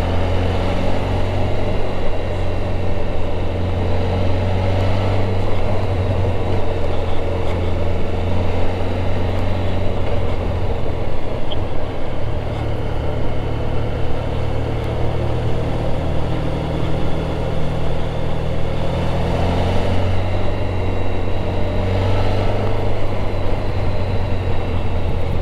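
Motorcycle engine running steadily at cruising speed under constant wind and road noise, its pitch rising and falling gently a few times, around five seconds in and again near twenty seconds.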